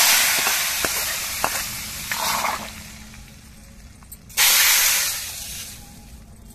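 Hot tempering oil with fried onion, mustard seeds and fenugreek poured from a steel pan into a clay pot of fish curry, sizzling with a loud hiss that dies away over a couple of seconds. A second pour, about four and a half seconds in, sets off another hiss that fades in the same way. A few light clinks of a steel ladle come between the two.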